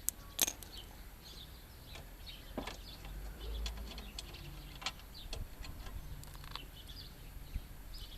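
Sparse, irregular light metallic clicks and ticks of a wrench working the bolts that hold the wheel plate to the trimmer's frame, with one sharper click about half a second in.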